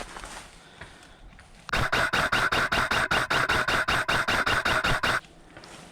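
Airsoft electric gun (AEG) firing a full-auto burst: a rapid, even string of shots over the whine of the gearbox motor, lasting about three and a half seconds and stopping abruptly.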